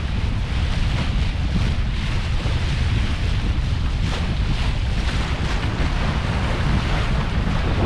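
Wind buffeting the microphone over the steady rush of water along the hull of a Hanse 385 sailing yacht making about 7 knots under sail.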